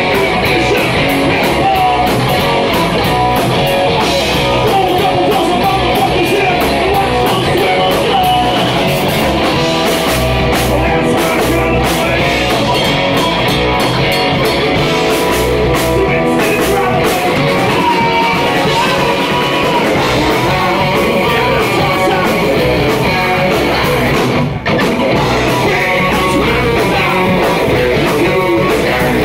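Live rock band playing loud: electric guitars, bass guitar and drum kit with a singer's vocals, the music dropping out for an instant once, near the end.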